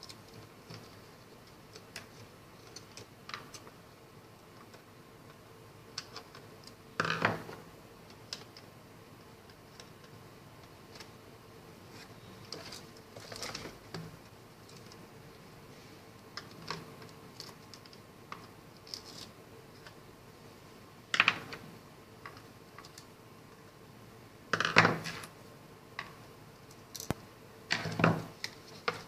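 Small screwdriver and screws clicking and tapping against the plastic casing of a radio remote-control transmitter while it is taken apart, with a handful of louder knocks and clatters spread through. A faint steady hum runs underneath.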